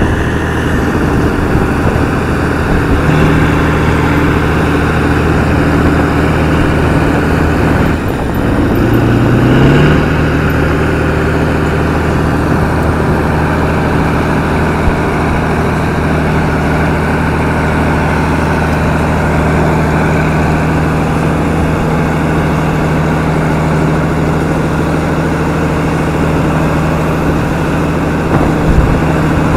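Large articulated diesel tractor, a Kirovets, running hard under heavy load as it churns through deep mud pulling a tillage implement. About eight seconds in the engine note sags, then climbs back up within about two seconds and holds steady.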